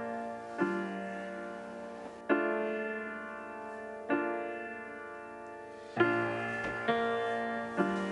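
Background music: slow piano chords, each struck and left to fade, a new one every one to two seconds.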